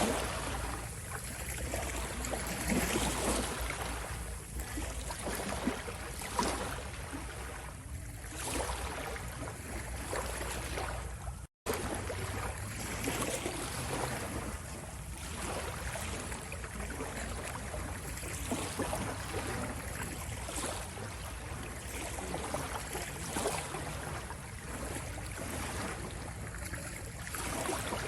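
Ocean waves washing continuously, the surf swelling and easing every second or two. The sound cuts out completely for an instant about eleven seconds in.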